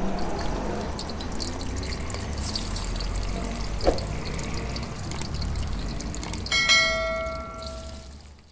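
Intro sound effects: a steady hiss over a low hum, a short blip about four seconds in, then about six and a half seconds in a bell chime rings out and fades. The chime is a notification-bell sound for a subscribe-button animation.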